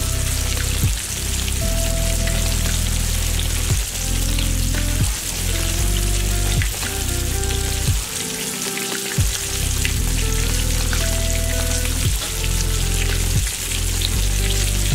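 Breaded tilapia fillets frying in a pan of hot oil, a steady bubbling sizzle with fine crackles. Underneath runs background music with a bass line that changes note every second or so.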